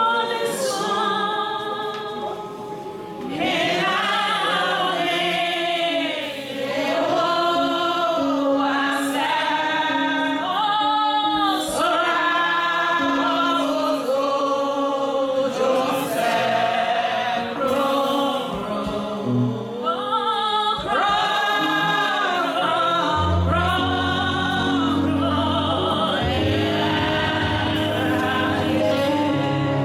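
Choir singing a gospel song, several voices with wavering held notes; a low bass accompaniment comes in about three-quarters of the way through.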